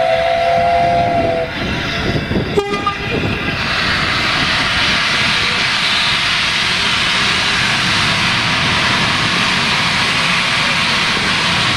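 A railway locomotive sounds a chord of several steady notes that stops about a second and a half in. A sharp knock follows a second later, and then a loud steady rushing hiss sets in and holds.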